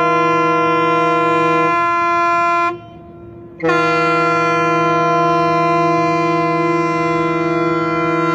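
Ship's horn of the Logos Hope sounding on departure from port: a loud, steady chord of several tones. Some notes drop out partway through the first blast, which breaks off for under a second about three seconds in, and a second long blast follows.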